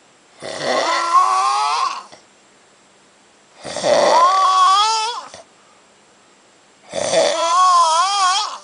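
A man snoring loudly after heavy drinking: three long snores, each about a second and a half, with a pitched tone that rises and wavers, and short silences between.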